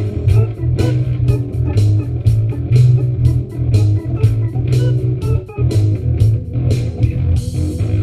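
Jazz improvisation on electric guitar, with chords over a bass line and a steady percussive beat.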